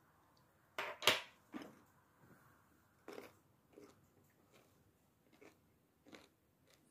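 A crisp pickled cucumber bitten with a loud crunch about a second in, then chewed, a crunch every two-thirds of a second or so, growing fainter.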